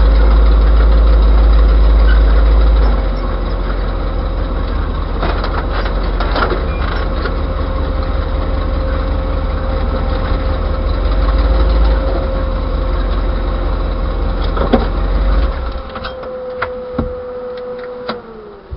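The 1936 GMC hot rod tow truck's engine runs at low speed and idles, a loud, steady low rumble with a steady whine over it and a few knocks. About fifteen seconds in the rumble drops away, and near the end the whine slides down in pitch as the engine winds down.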